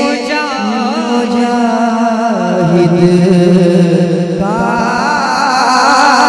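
A male voice singing a manqabat, an Urdu devotional poem, in a wavering, ornamented melody. A new, higher phrase begins about four and a half seconds in.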